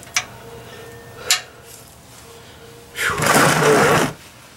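A man straining to loosen a very tight oil drain plug with a wrench: two short sharp breaths, then, about three seconds in, a loud heavy exhale lasting about a second.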